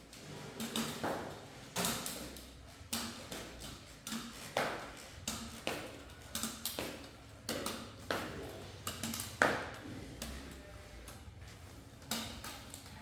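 Irregular sharp taps and clinks, about one or two a second, some ringing briefly, of dishes and utensils being handled.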